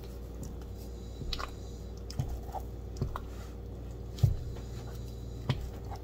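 Semolina fufu being stirred and pressed in a glass bowl with a wooden spoon: soft squishing of the thick dough, with about five short knocks scattered through.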